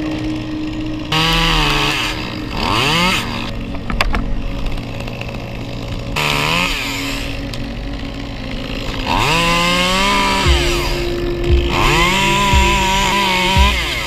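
Echo CS-2511TES top-handle chainsaw, a small two-stroke, idling and being revved up in several short blips. Near the end it is held at full revs for about two seconds.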